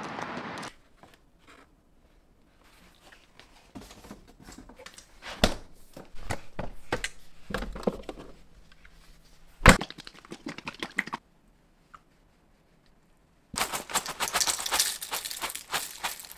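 Handling sounds: scattered clicks and knocks with two sharp knocks, then after a short silent gap a few seconds of dense crackling or crinkling.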